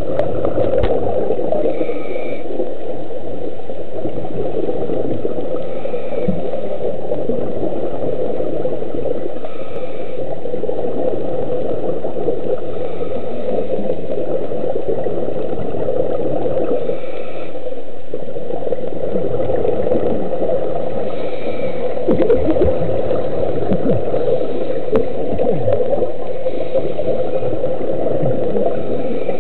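Steady underwater noise with a scuba diver's regulator breathing about every four seconds, each breath ending in a gurgle of exhaled bubbles.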